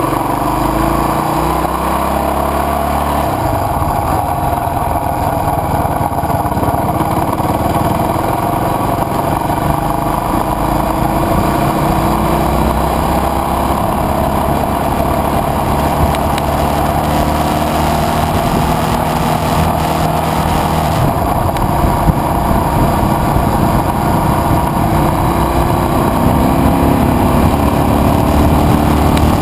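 KTM adventure motorcycle engine running steadily under way on a gravel road, its pitch slowly rising as the bike speeds up, with rough wind and road noise.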